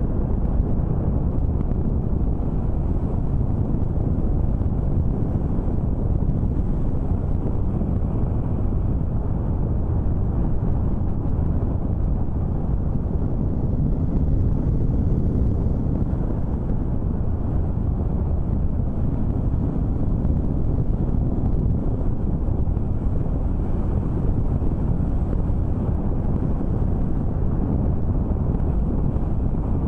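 Steady low wind rumble buffeting the microphone, with a vehicle's drone underneath and no distinct events.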